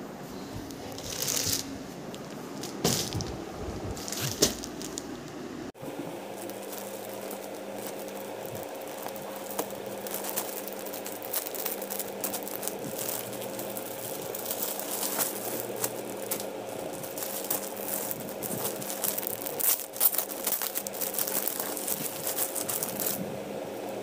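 Crinkling and rattling handling noises with scattered clicks, denser after a cut about six seconds in, over a faint steady hum.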